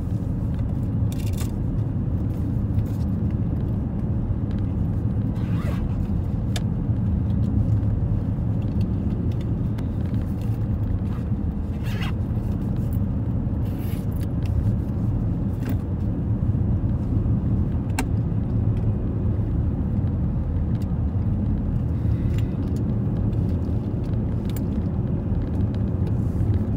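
Steady road and engine noise of a moving car, heard from inside the cabin as a continuous low rumble, with a few faint clicks scattered through it.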